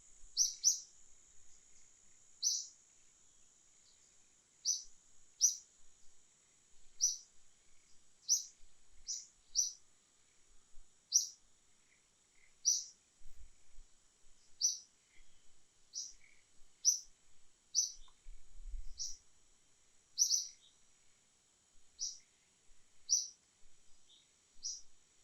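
A bird repeating a short, high chirp every second or two, sometimes as a quick double note, over a steady high-pitched insect drone.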